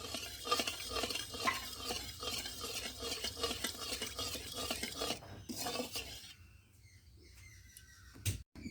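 Spoon stirring sugar in hot mustard oil in a kadai, a rapid run of scrapes against the pan that stops about six seconds in, caramelising the sugar. Then near quiet with a single click.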